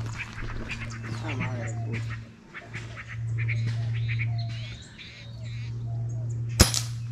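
Birds calling with short, repeated chirps and notes over a steady low hum that drops out twice briefly. A single sharp crack near the end.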